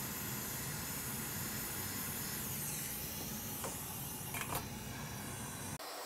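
Hot air rework station blowing a steady airy hiss over the board, warming freshly applied UV solder mask to help it cure. A couple of faint clicks come a little after halfway.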